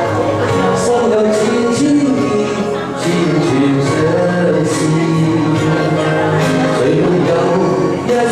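Song music with a steady beat and regular cymbal strikes.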